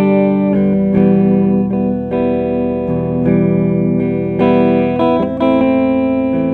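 Electric guitar played through a Peavey combo amp and picked up by a TZ Audio Stellar X3 condenser microphone set in front of the amp. Chords and single notes ring on and change about every half second to a second.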